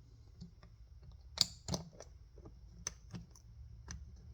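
Scattered light clicks and taps of small metal parts as a float bowl is fitted back onto a snowblower carburetor, the loudest pair about a second and a half in.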